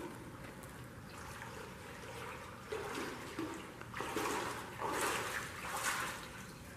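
Water sloshing and trickling, with a few irregular louder surges in the second half.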